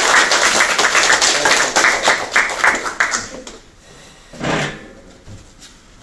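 A room full of people applauding, the clapping thinning and dying away about three seconds in. A single short sound follows a second or so later.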